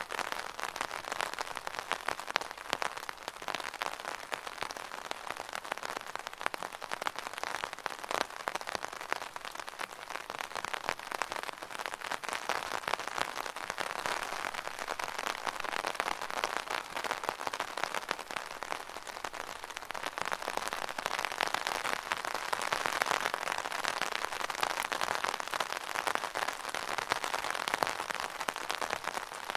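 Rain falling on an umbrella canopy: a dense, steady spatter of countless small drop hits.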